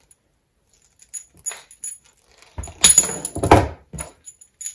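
Side cutters cutting through thick RG213 coax cable: a loud cut in two bites close together about three seconds in, with light clicks of handling before and after.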